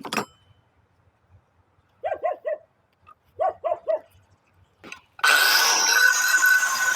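A dog barks in two quick runs of three short barks, about two seconds in and again about three and a half seconds in. Just after five seconds a loud, steady hissing noise with a high whine starts abruptly and carries on.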